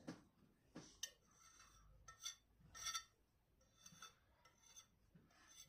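Faint, light clinks and scrapes of cutlery against a plate, a handful of short sharp taps spread over a few seconds.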